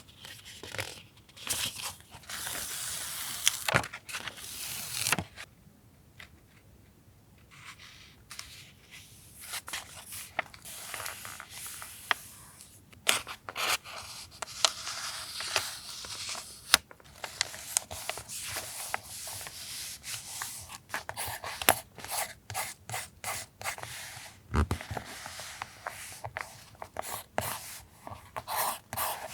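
Paper collage materials being handled and worked: rubbing, rustling and scraping of paper, broken by many sharp taps and clicks, with a quieter lull about five to eight seconds in.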